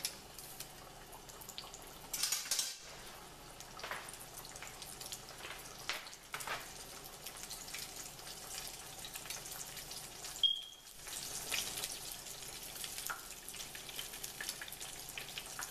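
Hot frying grease at about 300 degrees, crackling and sizzling steadily with irregular pops.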